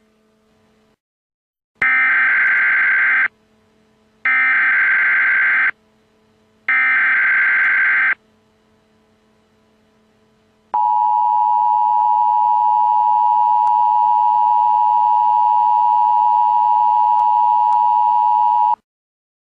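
Emergency Alert System SAME header: three loud bursts of shrill, buzzy digital data tones, each about a second and a half long with a second's gap between them, encoding the Civil Emergency Message alert. After a pause comes the steady two-tone EAS attention signal, held for about eight seconds and cutting off suddenly, the cue that a spoken emergency message follows.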